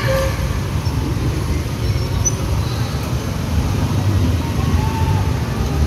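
Street traffic with many motorbike engines running, a steady low rumble.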